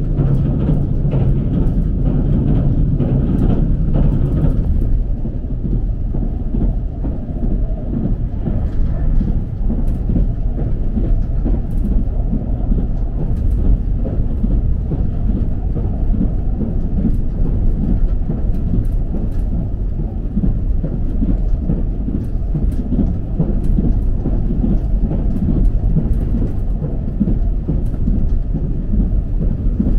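Cabin noise inside a limited express train running at about 105 km/h: a steady low rumble with occasional sharp clicks.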